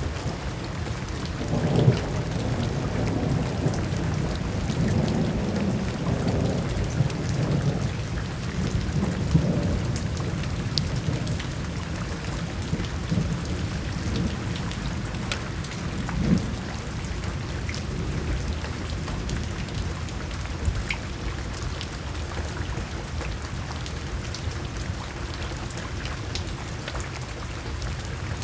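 Steady rain falling, with rolling thunder rumbling low underneath. The thunder is heaviest through the first third, with louder peaks about two and nine seconds in and another swell near the middle.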